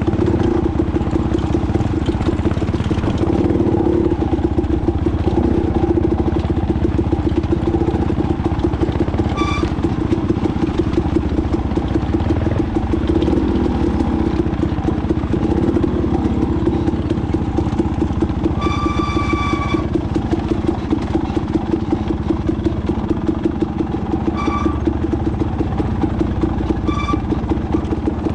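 Dirt bike engine running steadily under way, a rapid pulsing drone. A few brief high-pitched tones cut through it, the longest about two-thirds of the way in.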